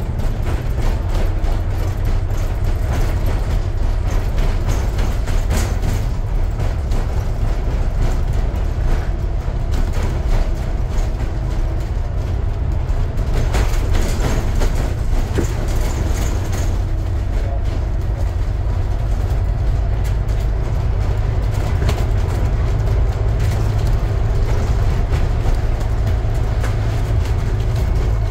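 Scania N250UD double-decker bus cruising at speed: a steady deep drone from its five-cylinder diesel engine and road rumble, with an occasional brief knock.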